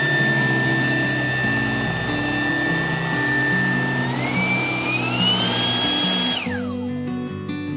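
Raycop cordless vacuum cleaner motor running with a high whine. The whine steps up in pitch twice as the power setting is raised, then winds down when the motor is switched off, under background music.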